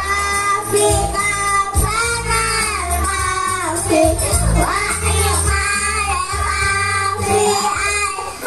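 A child singing a melody over musical accompaniment with steady bass notes that change every second or so.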